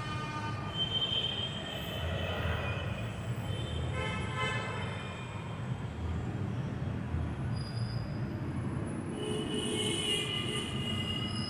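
High-pitched squealing tones over a steady low rumble, coming and going in several stretches, the clearest near the end.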